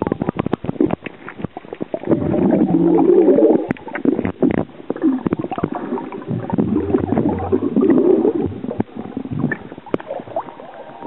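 Bubbling and gurgling recorded underwater as a swimmer drinks from a glass beer bottle held in his mouth and blows air into it, muffled by the water. A run of short clicks and knocks comes in the first two seconds, then two long stretches of gurgling.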